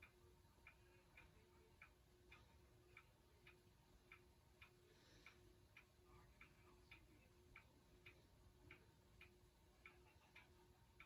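Faint, even ticking of a clock, about two ticks a second, over a faint steady hum.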